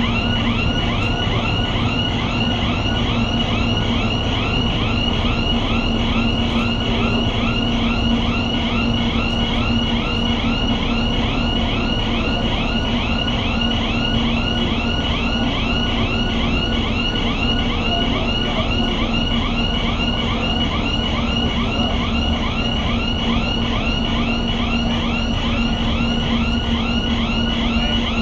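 Warning alarm on an aircraft carrier's aircraft lift, warbling about three times a second over a steady machinery hum.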